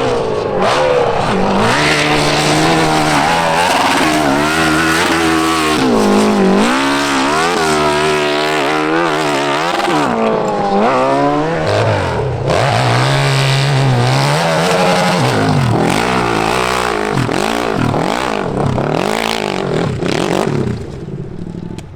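Nitro-fuelled hillclimb motorcycle engine revving hard, its pitch swinging up and down again and again as the throttle is worked. The sound falls away near the end.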